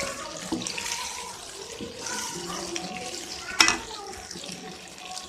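Boiled rice dumplings sizzling in ghee and sesame oil in a kadai as they are stirred, a steady hiss, with a sharp knock about three and a half seconds in.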